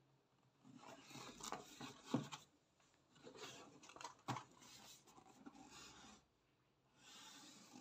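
Quiet rubbing and scraping of a cardboard box being handled and turned over, with two sharp taps about two and four seconds in.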